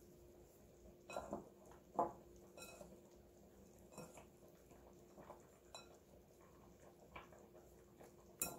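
Fingers rubbing cold butter into almond flour in a glass mixing bowl: faint crumbly rustling with scattered light taps and knocks against the glass, the sharpest about two seconds in. A faint steady hum underneath.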